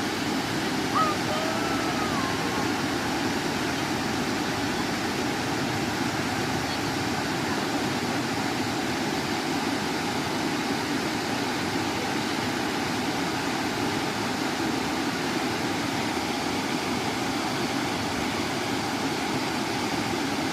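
Waterfall: a steady, unbroken rush of falling water. A brief whistle-like call sounds about a second in.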